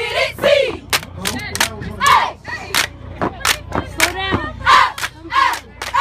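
Cheerleading squad shouting a chant together, the shouted phrases broken up by many sharp percussive hits.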